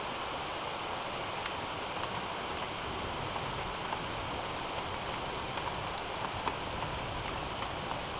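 Steady rain falling, with scattered sharp ticks of drops striking close by.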